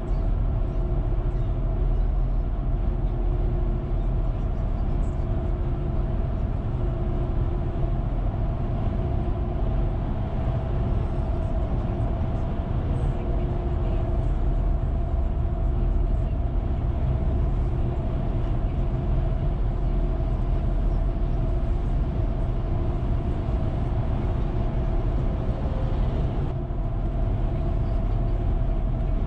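Car driving at steady speed on a paved road, heard from inside the cabin: a steady low rumble of tyres and engine, with a faint steady hum over it.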